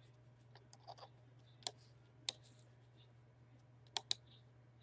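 A few sharp clicks at a computer, scattered and irregular, with two in quick succession about four seconds in, over a faint steady low hum.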